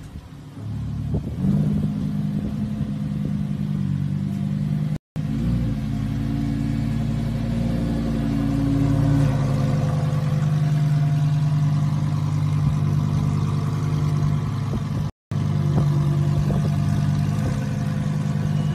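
Lamborghini Huracán's V10 engine running at a steady, fairly high idle, with a brief swing in revs just after 5 s. The sound cuts out for an instant twice, near 5 s and near 15 s.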